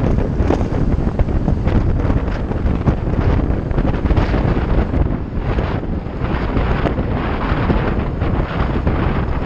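Loud wind buffeting the microphone of a bicycle rider moving at speed, a dense, fluttering rush with no let-up.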